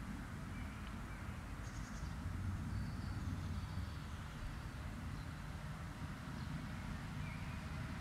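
Woodland ambience: a few faint, short bird chirps over a steady low rumble.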